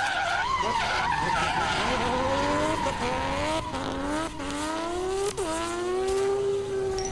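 Car engine accelerating hard through the gears as an intro sound effect. Its pitch climbs, drops at each of about three shifts, then holds steady near the end, with a high wavering squeal in the first second or so.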